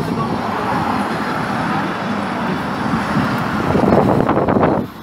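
Road traffic noise: a steady rush of passing cars that swells louder near the end, then drops away.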